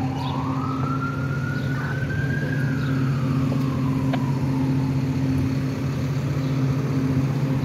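A siren wailing: one slow rise and fall in pitch that fades out about halfway through. Under it a steady low engine hum runs throughout.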